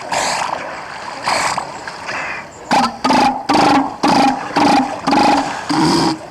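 Adult northern elephant seal belching close up: two short breathy bursts, then from just under three seconds in a run of about eight loud, low, throaty pulses, two or three a second.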